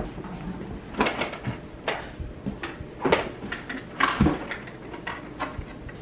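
Hard plastic knocks and clatter from a toddler's ride-on toy car being pushed and heaved up onto a sofa: about half a dozen separate knocks, roughly a second apart.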